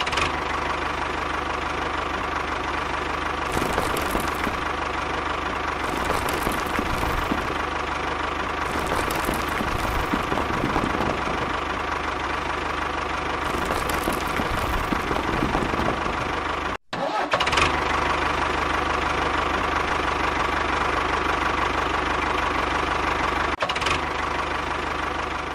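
Steady engine-like drone of a DIY mini tractor running, with a constant hum. It cuts out for a moment about 17 seconds in and then carries on unchanged.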